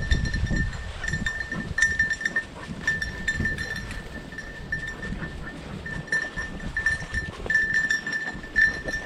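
A hunting dog's collar bell ringing almost without pause, breaking off and starting again unevenly as the dog works the cover, over the rustle of brush and footsteps.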